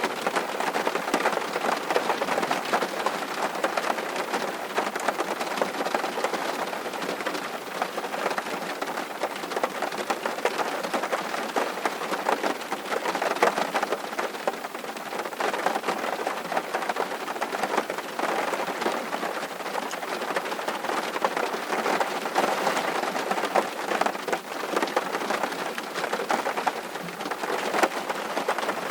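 Steady rain falling, an even hiss dense with the patter of individual drops.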